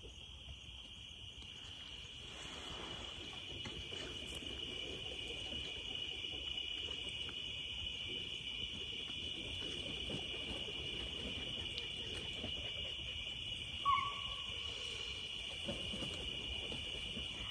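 Evening insect chorus: a steady, high-pitched drone over a faint low rustle, with one short, louder call about fourteen seconds in.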